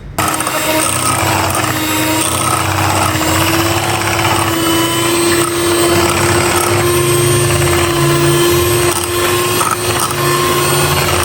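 Electric mixer running steadily, beating eggs, oil and sugar together for a cake batter. It switches on suddenly, and its motor whine rises slightly in pitch over the first few seconds.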